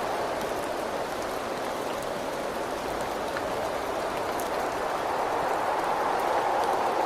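Steady rain with wind: an even hiss, with a few faint drop ticks, that swells a little again near the end as the wind rises.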